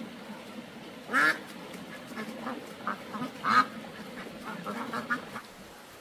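Ducks quacking: two loud quacks, about a second in and about three and a half seconds in, with softer, shorter calls between and after them.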